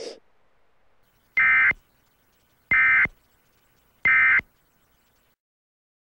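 Emergency Alert System end-of-message signal: three short, identical bursts of buzzing SAME digital data tones, evenly spaced about a second and a half apart, marking the end of the tornado warning.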